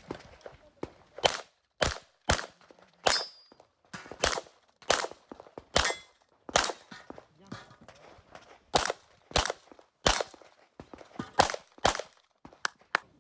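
Rapid handgun shots during an IPSC stage run, mostly in quick pairs about half a second apart, with a short break about seven seconds in before the firing resumes.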